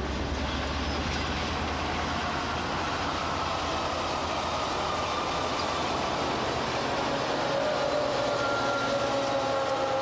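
A train running on the rails: a steady rumble and rattle of wheels, with faint thin squealing tones coming in a few seconds in.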